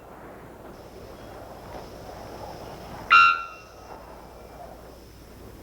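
Bellbird, most likely the three-wattled bellbird, giving one loud, short call made of several evenly spaced tones about three seconds in. Under it is a steady soft forest hiss and a faint thin high steady tone.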